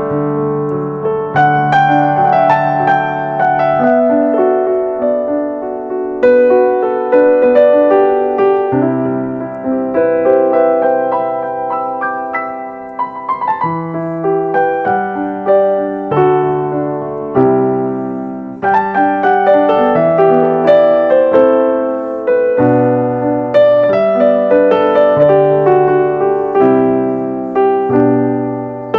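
Background music: solo piano playing slow, gentle chords and melody.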